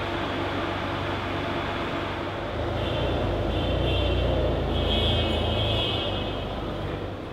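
Ferrari 599 GTO's V12 engine accelerating hard past the listener over steady street noise, swelling to a peak a few seconds in and then fading away.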